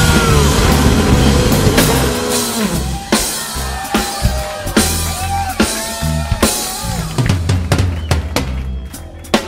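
Background rock music with a steady drum-kit beat, bass and gliding lead notes.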